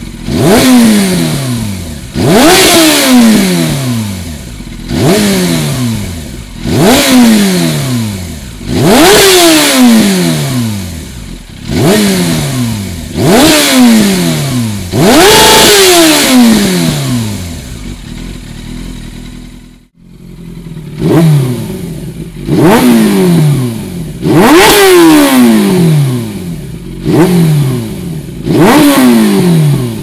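Yamaha YZF600R Thundercat's inline-four engine revved in short throttle blips about every two seconds, each rev rising fast and dropping away slowly, through a Dominator HP1 slip-on muffler rated 96 dB. About two-thirds of the way through it cuts to the same bike with a Dominator GP1 muffler rated 101 dB, revving in the same way.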